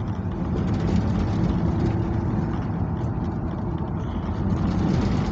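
Chevrolet C10 pickup driving over a rough road, heard from inside the cab: a steady engine drone with the body rattling and knocking over the bumps.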